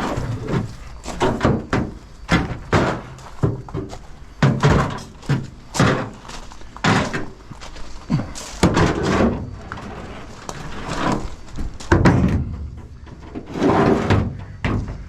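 Pieces of scrap metal being handled and dropped: a steady run of clanks and thuds, some ringing briefly, about one or two a second.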